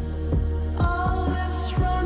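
Background music with a steady beat and a deep sustained bass; held chord notes come in about a second in, with a falling swoosh shortly after.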